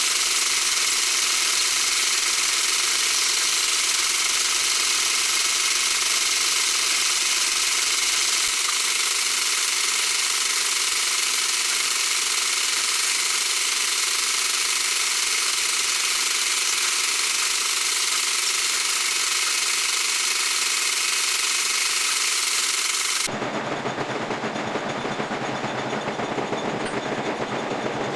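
Metal lathe running steadily while machining steel. About 23 seconds in, the sound switches abruptly to a lower, rougher machine noise.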